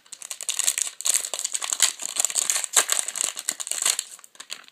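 A trading card pack wrapper being torn open and crinkled by hand, a dense crackling that goes on for about four seconds and then tails off.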